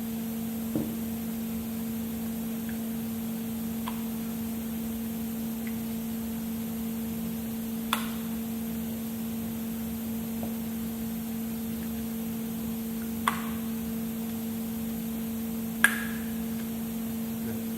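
Impact wrench anvil's friction-ring (O-ring) socket retainer clicking as sockets snap over it: four or five short sharp clicks several seconds apart, the loudest near the end, over a steady background hum.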